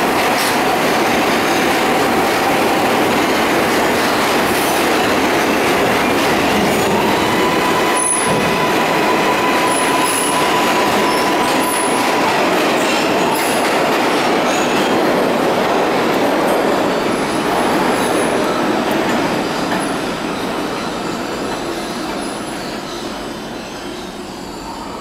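R142A subway train pulling out of the station and running into the tunnel. A steady wheel squeal holds for several seconds partway through, with brief high-pitched screeches now and then, and the sound fades away over the last several seconds as the train recedes.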